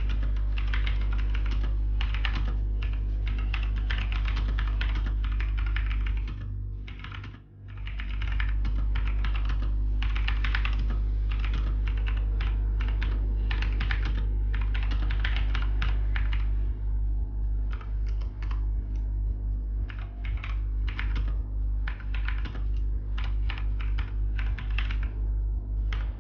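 Zebronics Zeb Max Chroma mechanical keyboard being typed on fast, a dense stream of key clicks of moderate loudness. It breaks off briefly about seven seconds in, and the keystrokes turn slower and sparser for the last ten seconds.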